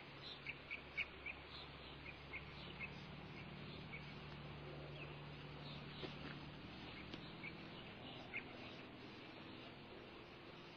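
Faint short high chirps, like small birds, a quick run of them in the first few seconds and scattered ones after, over a steady hiss and low hum.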